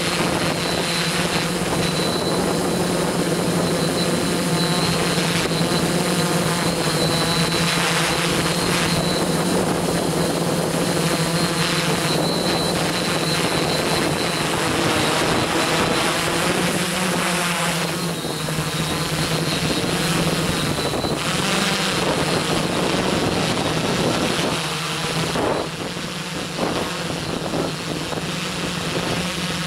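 Quadcopter motors and propellers buzzing steadily in flight, heard close up from the camera on board, with a high whine over the buzz. Near the end the sound grows quieter and less even.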